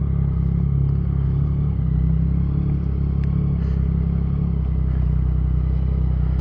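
Motorcycle engine idling steadily, with an even low beat and no revving.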